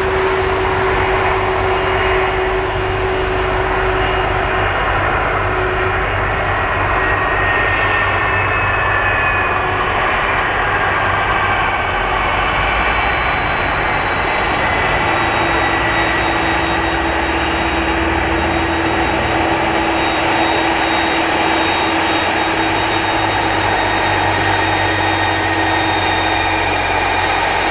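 Jet engines of an Airbus A330-300 airliner running during its landing: a steady, loud rush of engine noise with high whining tones, one of them dropping slightly in pitch about halfway through.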